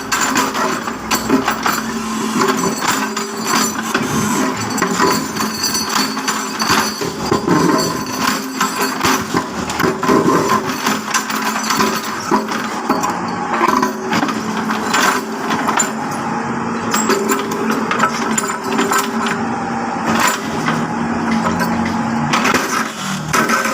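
Construction work noise: repeated knocks and hammering over a steady hum.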